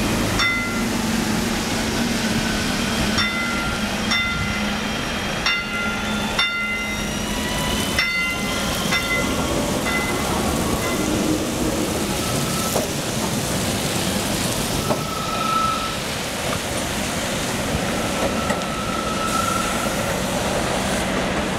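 Bombardier TVR guided rubber-tyred electric tram pulling away from a stop and passing close by, with a steady electric hum under it. Over the first nine seconds there is a string of short high-pitched tones, then a whine from its drive twice near the end as it moves off.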